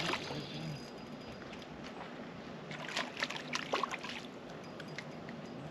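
Water lapping against the hull of a small fishing boat, with a short run of light clicks about three to four seconds in.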